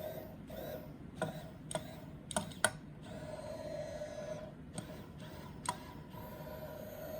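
Small hobby robot's drive motors whirring in short spurts, with several sharp clicks in between; the jerky stop-start comes from the joystick control pulsing the motors.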